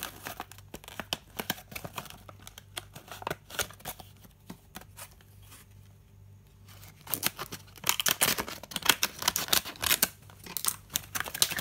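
Stiff clear plastic blister packaging being cut with scissors and pulled apart, crackling and crinkling in sharp irregular snaps. The crackling thins out in the middle and becomes dense and loud for the last few seconds.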